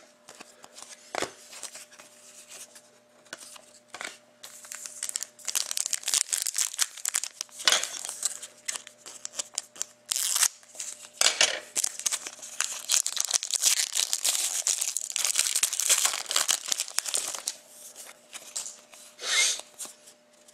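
Hockey trading card pack wrapper being torn open and crinkled: a long stretch of crackling from about five seconds in until near the end, with a few sharp knocks.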